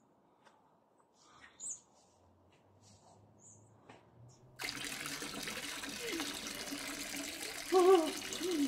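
Faint short bird chirps, then about halfway through a sudden steady rushing like running water. Near the end come a couple of short falling, voice-like sounds.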